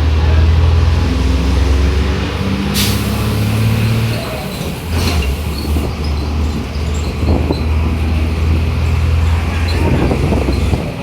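Mercedes-Benz OF-1721 bus's diesel engine running steadily, its note lifting briefly and settling again after about four seconds. A short air-brake hiss comes about three seconds in, and a fainter one follows around five seconds.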